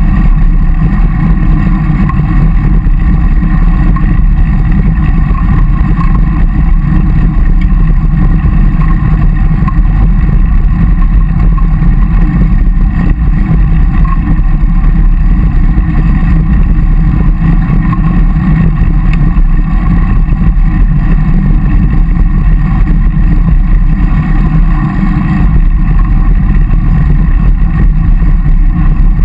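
Steady low rumble of wind buffeting a bike-mounted camera's microphone while riding, mixed with tyre and road noise from the bicycles on tarmac.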